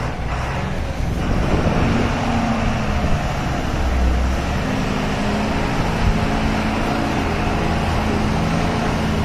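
Cargo truck loaded with cement bags driving, its diesel engine running with a steady drone.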